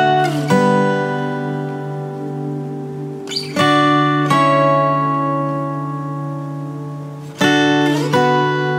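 Background music: acoustic guitar chords strummed in pairs about every three and a half seconds, each left to ring out.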